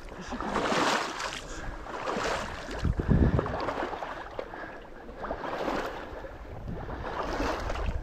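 Footsteps sloshing and swishing through shallow bog water and wet sedge, a swell about every second, with wind rumbling on the microphone.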